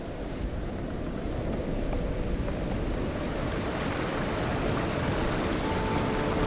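Steady rushing of river water over rapids, growing gradually louder. A few soft sustained music notes come in near the end.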